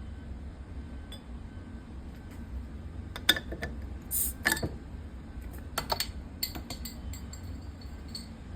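Light metal-on-glass clinks and taps, bunched in the middle, with one short hiss about four seconds in: a hand-forged steel bottle opener prying the cap off a glass bottle.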